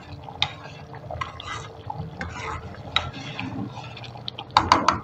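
Metal ladle stirring and scraping a thick coconut milk mixture in a metal pan, with a wet sloshing sound and occasional scrapes and clinks. A quick run of knocks against the pan comes near the end. The sticky, gloopy stirring marks the mixture thickening as it cooks down.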